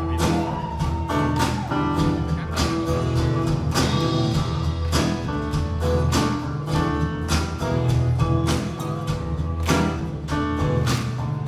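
Live band playing an instrumental intro: strummed acoustic guitar over a steady drum beat, with bass and keyboard, heard from the audience in a concert hall.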